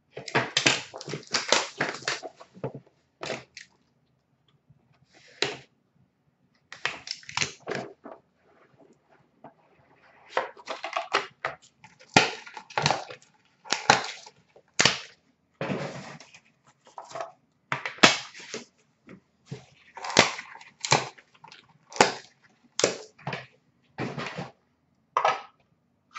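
Packaging of a sealed trading card box being torn open and crinkled, in irregular bursts of crackling with short pauses between them.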